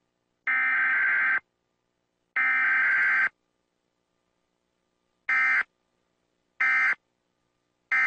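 Emergency Alert System SAME data bursts, the harsh buzzing digital tones that open and close an EAS alert, here announcing a Required Weekly Test. Two header bursts of about a second each, a pause, then three short end-of-message bursts about 1.3 s apart.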